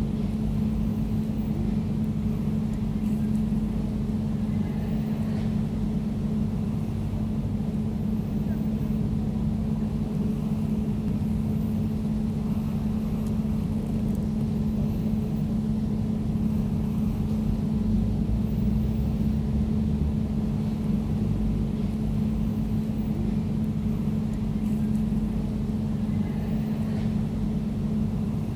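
Air conditioner running steadily: a constant low hum with one unchanging pitched drone over a deeper rumble.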